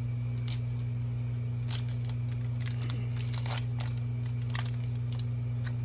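Foil wrapper of a block of cream cheese crinkling and tearing in short, sharp crackles as it is pulled open by hand. A steady low hum runs underneath.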